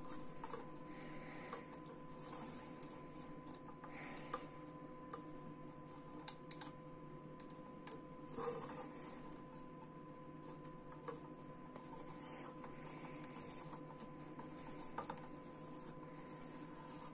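Hard plastic figure parts clicking and rubbing as a ball-jointed construction figure is handled and its limbs are moved: irregular light clicks and scratchy rustles over a faint steady hum.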